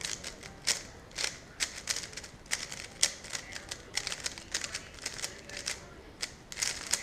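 A 3x3 Rubik's Cube being turned fast during a speedsolve: a quick, irregular run of plastic clicks and clacks as the layers snap round, several a second.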